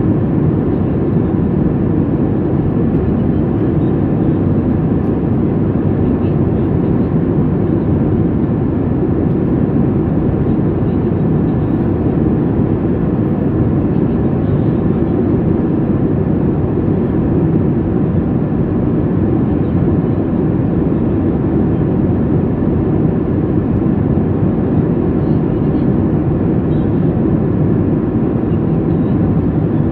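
Steady cabin noise of a Boeing 737 MAX 8 in cruise, heard from a window seat: an even, low rumble of its CFM LEAP-1B turbofans and the airflow past the fuselage, with faint steady tones above it.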